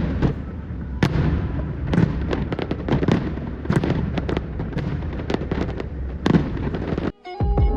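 Fireworks display: many sharp bangs and crackles in quick, irregular succession over a steady low rumble. It cuts off suddenly near the end, and music with plucked notes begins.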